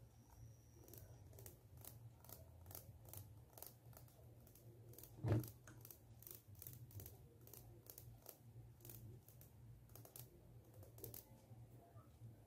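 Fingers scratching across the teeth of a plastic comb close to a microphone: a string of faint crisp ticks, two or three a second, over a low steady hum. About five seconds in there is one louder knock.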